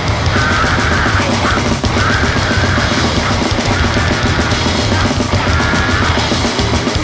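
Loud, heavily distorted grindcore noise music: a dense wall of distorted guitar and rapid drumming, with a few short, wavering high tones cutting through.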